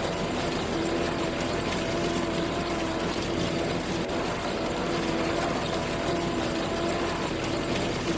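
Combine harvester running steadily while harvesting wheat: dense mechanical noise with a steady whine over it.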